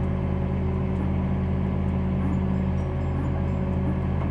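An engine running steadily at a constant speed, a low hum that holds one pitch.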